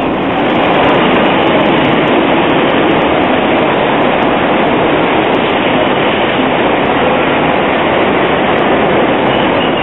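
Hong Kong narrow-gauge double-deck tram running along street track, heard from on board as loud, steady running noise.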